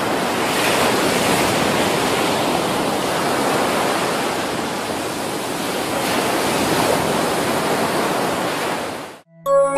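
A steady, even rushing noise, surf-like, that swells slightly now and then and cuts off suddenly near the end.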